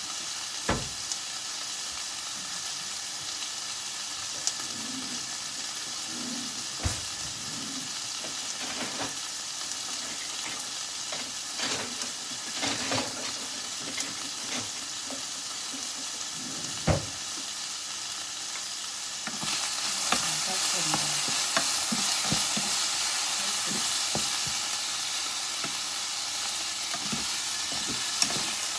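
Minced beef sizzling in olive oil in a frying pan, a steady hiss broken by a few sharp knocks against the pan. The sizzle grows louder about two-thirds of the way in.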